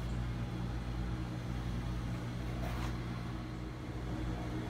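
Steady low background hum with a few even low pitches, room tone of a workshop with no distinct event; a faint soft rustle a little past halfway.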